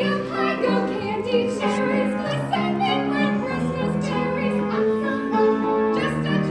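A mixed choir of male and female voices singing in harmony over instrumental accompaniment.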